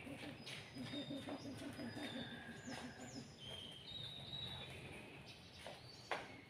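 Kite's water-bottle hummer droning: a low, pulsing, wavering hum, with faint thin high whistling tones above it.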